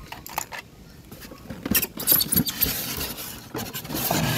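Plastic toy crane being handled in its styrofoam packaging: a few light clicks, then from a couple of seconds in, irregular scraping and rustling of plastic against foam.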